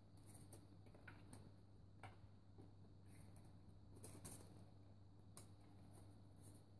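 Near silence with faint, irregular light scratches and ticks from Oriental kittens' paws and claws as they poke about the edge of a litter tray. There are about ten of them, scattered through, over a low steady room hum.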